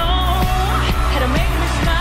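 Live pop performance: a woman singing into a microphone, her voice sliding between notes, over a backing band with steady drums and bass.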